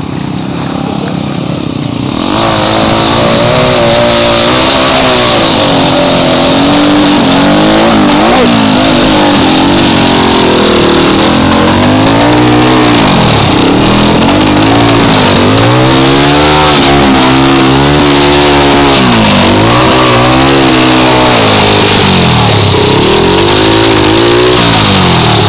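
Air-cooled single-cylinder engine of a trail motorcycle, heard close up and loud. It is revved hard over and over, its pitch rising and falling every second or two, starting about two seconds in.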